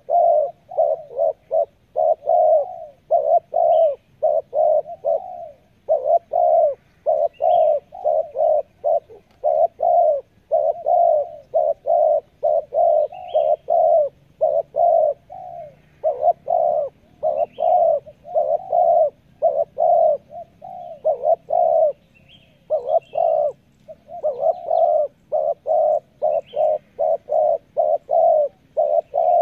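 Spotted dove cooing in quick runs of short, low notes, about four a second, broken every few seconds by brief pauses.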